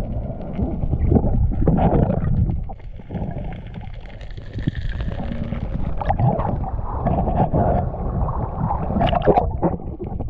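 Muffled churning and gurgling of water, heard through an action camera's waterproof housing as it moves underwater and breaks the surface, with scattered small knocks.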